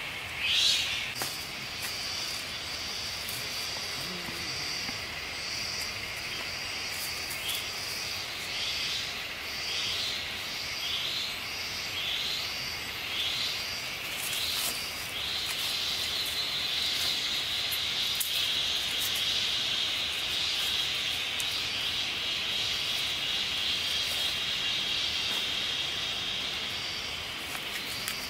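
Tropical forest insects buzzing in a steady high-pitched chorus that grows stronger about halfway through. Earlier, a series of short repeated chirping calls comes about once a second, and two louder calls sound right at the start.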